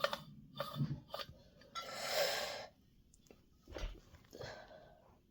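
Scattered light clicks and taps of a brass miner's lamp's metal parts being handled and fitted together, with a breathy exhale about two seconds in.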